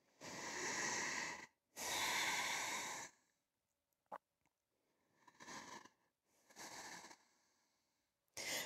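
A woman breathing slowly and deeply: two long, audible breaths, then two fainter ones, with a small click about four seconds in.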